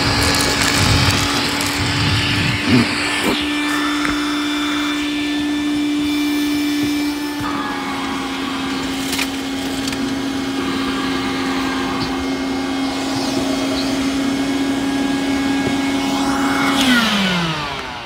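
Wet/dry shop vacuum running with a steady motor whine while sucking up pieces of plastic, with a few sharp clicks about three seconds in. Its pitch dips slightly about halfway through, and near the end it is switched off and winds down with a falling whine.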